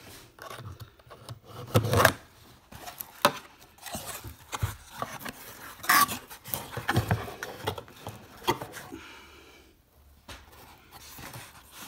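A knife slitting the packing tape on a corrugated cardboard box, then the cardboard flaps being pulled open: irregular scraping and rasping with sharp knocks, loudest about two and six seconds in.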